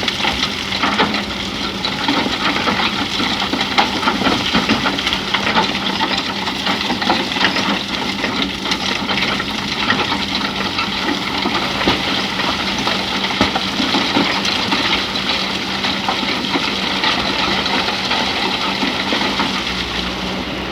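Excavator working in sand: its diesel engine runs with a steady hum under a continuous gritty clatter and rush of sand and stones.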